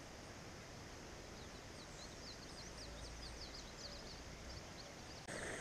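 Birds chirping in a quick run of short, high, thin notes over a steady outdoor background hiss. Near the end the background noise jumps suddenly louder.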